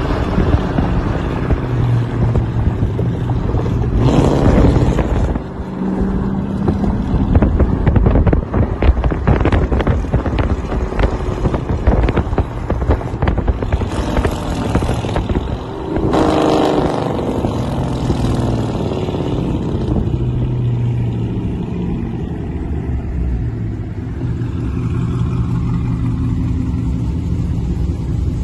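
Dodge Charger R/T's 5.7 L HEMI V8 running through long tube headers, catless mid pipes and a muffler delete, very loud. The exhaust note climbs in two revs, about four seconds in and again about sixteen seconds in, with a choppy, pulsing stretch between them.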